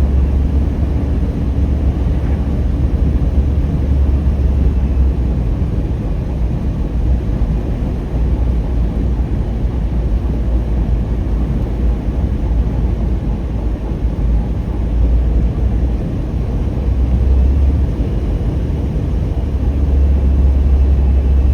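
Steady low rumble of a car driving, heard from inside the cabin: engine and tyre road noise at cruising speed.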